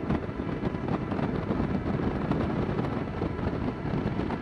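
Motorcycle on the move: steady engine and road noise with wind rushing over the rider's microphone.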